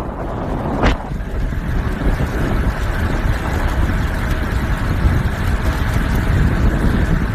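Wind rushing over the microphone of a phone held by a cyclist riding a road bike at speed: a loud, steady rushing noise.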